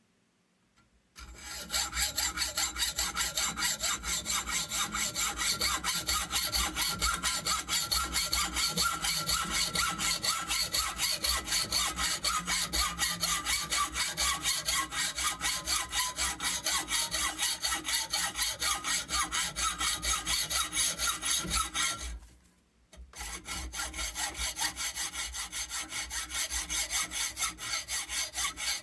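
Hacksaw cutting through a hollow metal towel-bar tube held in a bench vise, with a quick, even rhythm of rasping back-and-forth strokes. It starts about a second in, pauses for about a second near the 22-second mark, then carries on.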